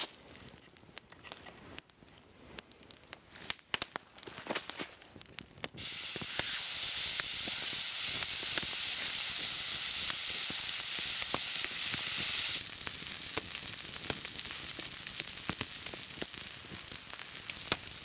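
Food sizzling on a stone heated over an open fire. The first few seconds hold only light crackles and ticks. About six seconds in a loud sizzle starts abruptly, and it drops suddenly to a quieter sizzle with scattered pops about seven seconds later.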